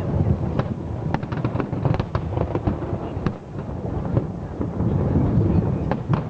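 Aerial fireworks display going off: a continuous low rumble of booms with many sharp bangs and crackles in quick succession.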